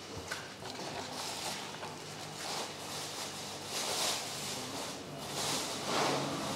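Hands pleating soft raw dough around a minced lamb and onion filling: soft, sticky rustling and squishing that comes and goes in small swells. A low engine hum comes in near the end.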